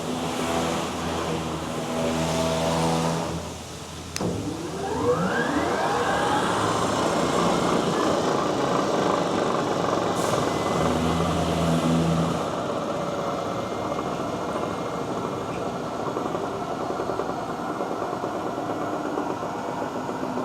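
South Bend 14-inch tool room lathe running under power. About three and a half seconds in it drops away briefly; then a click sounds and the drive spins back up with a rising whine over a few seconds before running steadily again.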